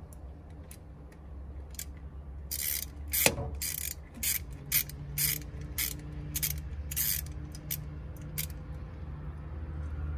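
Hand socket ratchet clicking as it is swung back and forth to turn the screw of a band hose clamp on a coolant hose. It comes in about a dozen short bursts, one per back-swing, starting a couple of seconds in and stopping near the end.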